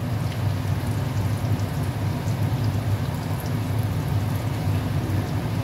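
Lentil meatballs frying in shallow oil in a pan over a gas flame: a steady sizzle with faint scattered crackles over a steady low hum. They are browning in the oil.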